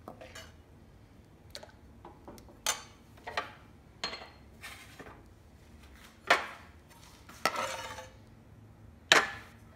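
Steel ladle clinking and knocking against a metal pan and small glass bowls while thick soup is ladled out: a series of separate sharp clinks, one of them a longer scrape about three-quarters in.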